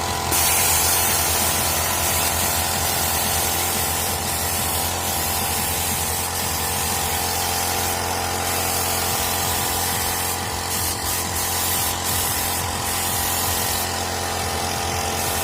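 Paint spray gun hissing as paint is sprayed, starting about half a second in and swelling and easing in strength, over a steady motor hum.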